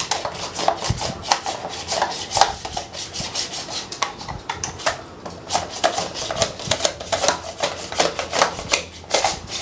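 Plastic handheld mandoline slicer slicing a Roma tomato: the pusher guard is worked quickly back and forth over the blade, making a fast run of clattering clicks and scrapes, several a second, against the plastic cutting board.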